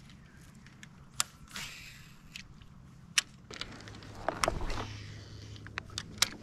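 Tackle handling with a baitcasting reel and light rod: a few sharp clicks, about a second in, at three seconds and near the end, among brief rustling swishes as the reel is worked and the rod cast.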